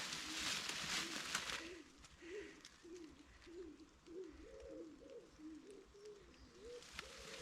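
A pigeon cooing in a steady run of low, wavering phrases. A rustling, crackling noise, louder than the cooing, fills the first second and a half, then stops.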